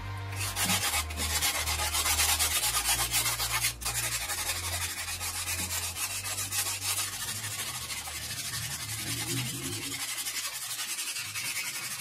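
Sandpaper rubbing over freshly cement-coated paper on a tube, a steady rasping made of rapid, regular strokes.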